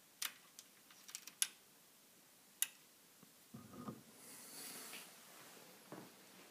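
Several sharp, separate clicks from a small lever microswitch pressed by hand beside a kitchen-cabinet door hinge. This normally-closed switch switches the cabinet's 12 V LED strip as the door closes and opens. Then a dull knock and a brief rushing noise as the wooden cabinet door is swung open, with another knock near the end.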